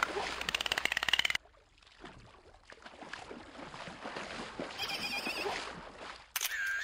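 Voiced cartoon dolphin chatter: a fast buzz of clicks with a squeal gliding up and down, cutting off about a second and a half in. Then softer squeaky, chattering dolphin noises imitated by a voice, with a short chirp near the middle and a brief, louder squeal falling in pitch near the end.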